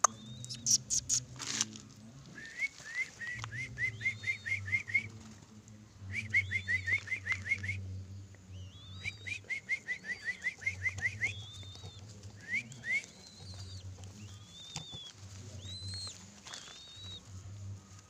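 Runs of quick, rising whistled chirps, about eight a second in bursts of a second or two, with longer arched whistles near the end, over wing flaps and scuffling as young turtle doves jostle at a hand-held cloth bundle.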